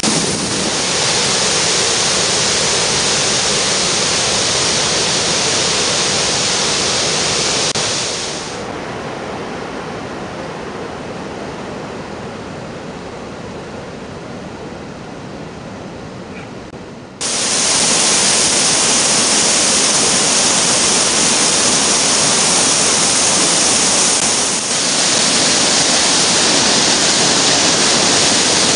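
Waterfall and rapids in full spring flood: a loud, steady rush of whitewater. In the middle the rush turns fainter and duller for several seconds, then comes back suddenly at full loudness.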